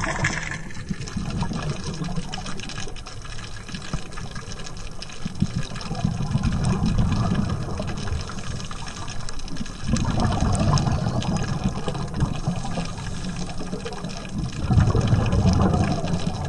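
Heard underwater: a scuba diver's regulator breathing, with exhaled bubbles rumbling out in swells about every four seconds, three times, over a steady crackling hiss.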